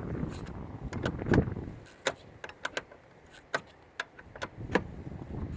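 A 12 mm wrench working the nut on a battery terminal clamp: scuffing handling at first, then a run of sharp, unevenly spaced metal clicks as the wrench is worked back and forth.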